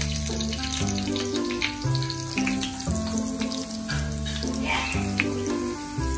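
Background music, with oil crackling and sizzling as potato chunks fry in a pan.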